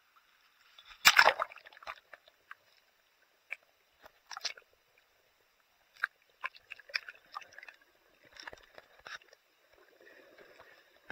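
Sea water sloshing loudly about a second in as a handheld camera plunges below the surface. Then scattered short clicks, crackles and bubbling sounds are heard underwater.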